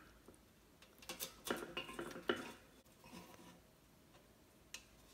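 Faint handling of a painted metal pail and burlap wired ribbon: light clinks and knocks of the pail and its wire handle with ribbon rustling, a cluster of them one to two and a half seconds in and a single sharp click near the end.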